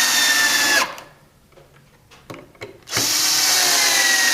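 Power drill driving 3-inch screws into 2x4 blocks. The motor's whine sags slowly in pitch as each screw sinks in. The first run stops abruptly about a second in, and after a pause with a few small clicks, a second screw is driven from about three seconds in.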